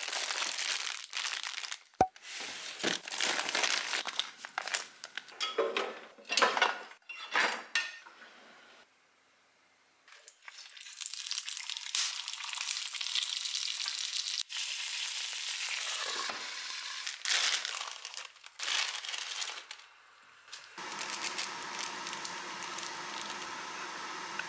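Plastic instant-noodle packets crinkling in irregular bursts as a hand rummages through them. After a short pause, frozen dumplings sizzle steadily in an oiled frying pan.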